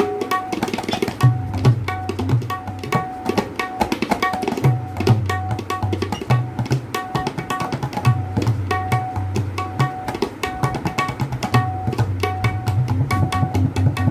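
A new tabla played in a fast, continuous stream of strokes to check its tone. The treble drum (dayan) rings at one steady pitch, and the bass drum (bayan) booms in deep swells every couple of seconds.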